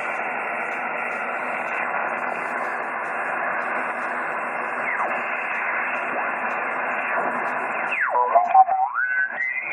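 Shortwave amateur radio receiver hissing with band noise through its narrow single-sideband passband. About eight seconds in, whistling tones slide up and down in pitch over the hiss.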